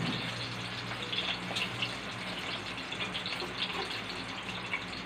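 Food frying in hot oil in a pan: a steady sizzle with small crackles and pops, over a low steady hum.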